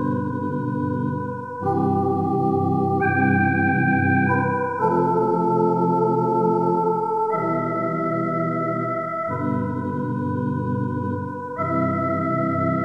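Organ music: slow, held chords that change about every two seconds, with a sustained melody line on top.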